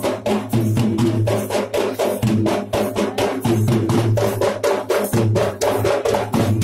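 Traditional Sri Lankan ritual drumming for the Paththini dance. Several hand drums beat a fast, dense rhythm of sharp strokes, about seven a second, over a low steady hum.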